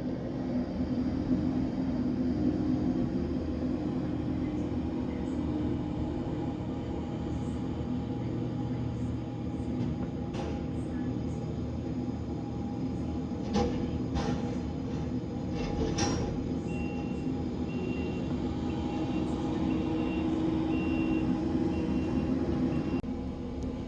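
Skid steer's diesel engine running steadily under load while it hauls logs with its grapple, with a few sharp knocks partway through. A high, evenly repeated beep sounds over the last several seconds.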